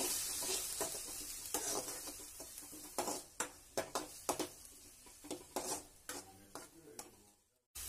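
Metal ladle scraping and clinking against an aluminium kadai at an irregular pace, stirring chopped tomato and onion frying in oil. Under the strokes is a sizzle that fades toward the end.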